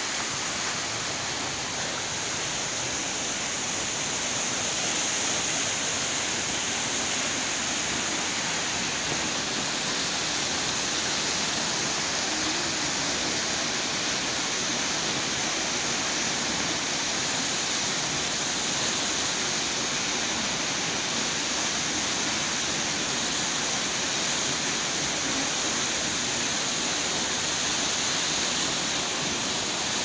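Waterfall: a steady, hissing rush of water pouring down a rock face.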